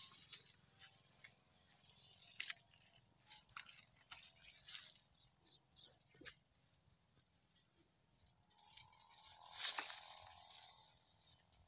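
Dry harvested soybean stalks and pods crackling and rustling as a stick pokes into the stack and a hand pulls at it: faint, scattered snaps and crunches, with a louder rustle about ten seconds in.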